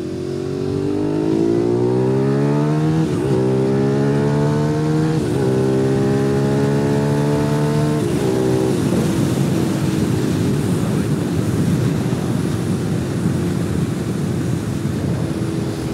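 Suzuki SV650's 645 cc V-twin engine pulling hard while the motorcycle is ridden. The pitch rises steadily and dips briefly twice, at about three and five seconds in, as the rider changes gear. About halfway the engine note fades under a steady rush of wind noise.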